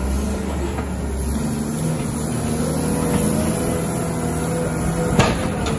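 CAT 930K wheel loader's diesel engine running steadily while the loader pushes snow with its plow blade. There is a short sharp knock about five seconds in.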